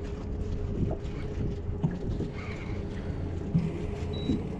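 A boat engine running steadily with an even hum, and wind rumbling on the microphone.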